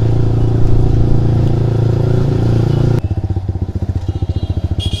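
Motorcycle engine running steadily under way, then about three seconds in dropping abruptly to a slow, lumpy idle as the bike rolls to a stop. A short high-pitched squeak sounds at the very end.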